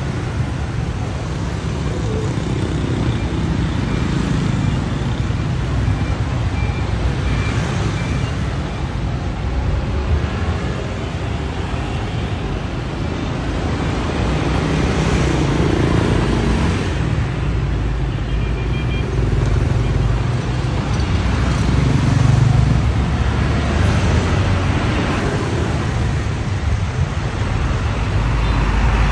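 Street traffic: a steady stream of small motor scooters running past, engines and tyres swelling and fading as each goes by. Near the end a box truck comes close, and the low rumble grows.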